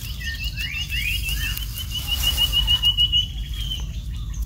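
A bird calling in the forest: a fast, even trill of short chirps, about seven a second, lasting some three seconds, with a few rising whistled notes near the start.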